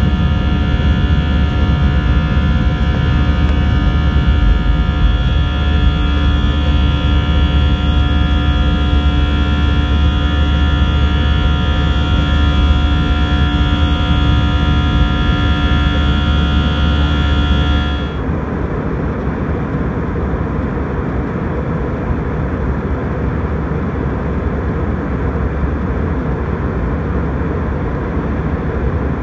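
Airliner cabin noise: the jet engines run steadily, a hum of several held tones over a low drone. About two-thirds of the way through it changes abruptly to a plain, slightly quieter rushing noise without the tones.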